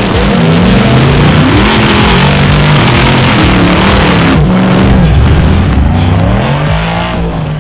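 Off-road race car engine revving hard, its pitch swinging up and down again and again over a loud rushing noise. It fades out near the end.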